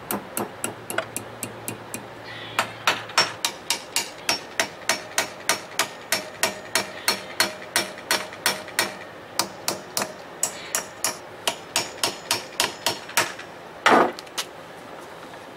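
Hammer tapping steadily on a Torx bit driven into a broken bolt in an outboard powerhead, about three light metallic strikes a second. Near the end comes one louder, short scraping burst.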